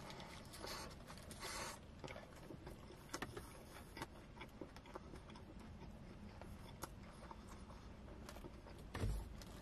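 Faint close-up chewing of a mouthful of shawarma: soft wet mouth clicks scattered throughout, with two short rustles within the first two seconds.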